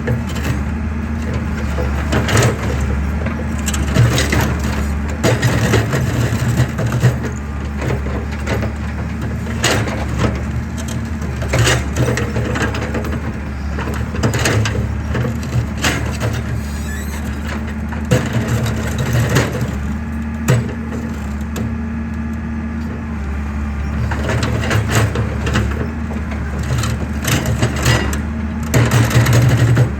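Excavator's diesel engine running steadily under repeated, irregular sharp cracks and crunches of concrete breaking as it is crushed.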